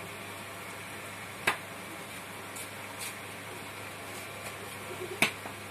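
Potter's wheel running with a steady low hum while a wet clay jug is shaped on it. It is broken by a few sharp snaps, the loudest about a second and a half in and another near the end.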